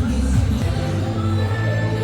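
Pop music playing, with a steady bass line and some singing.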